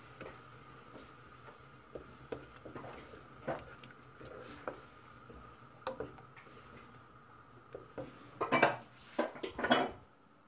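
Wooden spatula stirring butter melting in a saucepan, tapping and scraping against the pan, with scattered light knocks and a few louder ones near the end.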